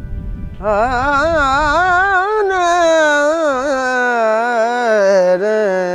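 A Manganiyar folk singer's unaccompanied male voice opening a Rajasthani folk song with one long, ornamented held note that bends and wavers in pitch, starting about half a second in. Low wind rumble on the microphone fades out about two seconds in.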